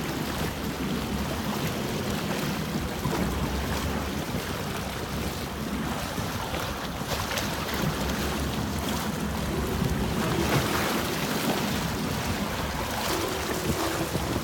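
Steady wind rushing over the microphone, with water washing against a boat at sea.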